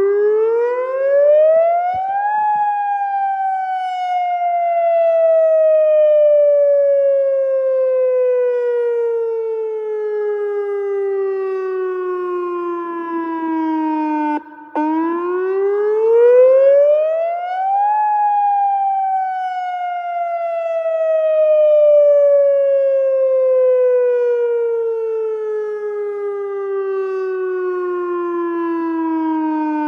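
Outdoor tornado warning siren sounding a wail during a test. Its pitch climbs quickly for about two seconds, then falls slowly for about twelve, cuts out briefly, and repeats the cycle twice.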